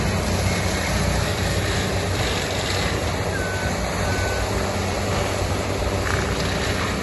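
Forestry mulcher running steadily on its carrier machine, a heavy engine and spinning rotor making a constant loud mechanical din while grinding standing eucalyptus.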